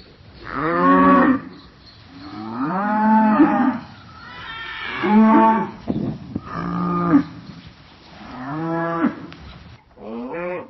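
Cow mooing: a series of about six moos, each lasting around a second, with a cut to a different mooing recording near the end.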